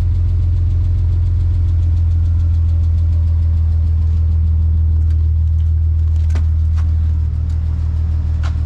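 BMW M54B30 3.0-litre straight-six idling through a freshly built split (dual) exhaust with the catalysts removed. It gives a steady deep drone that eases slightly about seven seconds in.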